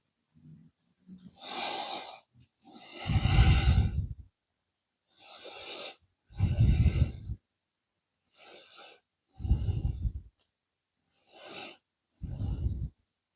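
A person breathing close to the microphone: four slow cycles, each a soft hissy inhale followed by a louder exhale that gusts onto the mic with a low rumble.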